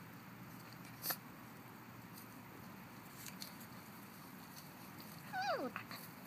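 Puppy letting out a short high whine that falls steeply in pitch, about five seconds in, while play-fighting with another puppy; before it only faint scuffling and one sharp click about a second in.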